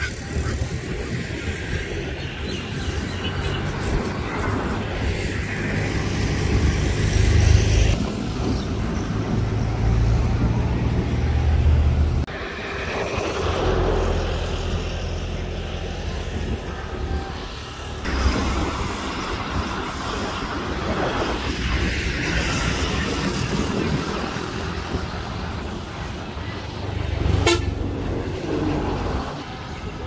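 Road traffic running past, with vehicle horns tooting now and then over a steady low rumble. The sound changes abruptly a few times.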